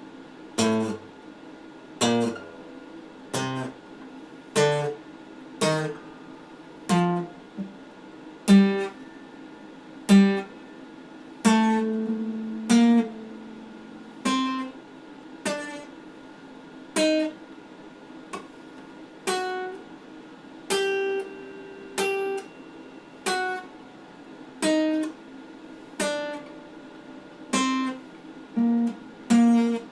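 Acoustic guitar played slowly: chords struck one at a time, about one every second and a half, each left to ring and fade before the next.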